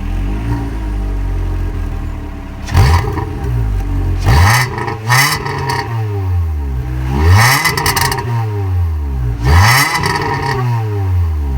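VW Polo 6N2 1.4 MPI's four-cylinder petrol engine revved through a full replacement exhaust with the pre-cat and resonator removed. It gives about five sharp blips from idle, each falling back to idle.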